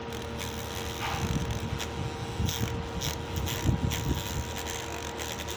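Small battery-powered DC motor spinning a sandpaper disc with a steady whine, and uneven scraping as a piece of white cement is ground against the sandpaper, starting about a second in.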